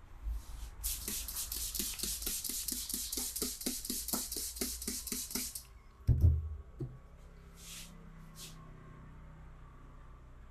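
Hands striking in quick succession in a percussive massage, about five hollow slaps a second for roughly five seconds. A single low thump follows about six seconds in and is the loudest sound.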